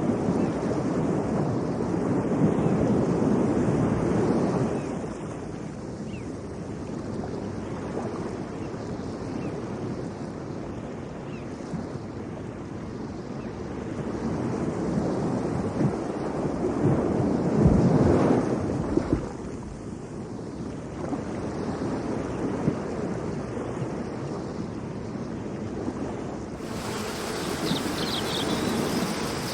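Wind and water noise rising and falling in slow swells, with wind buffeting the microphone. The sound changes abruptly about three seconds before the end.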